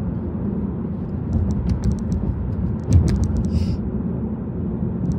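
Road and engine noise inside a moving car's cabin: a steady low rumble, with a few light clicks in the middle and a single thump about three seconds in.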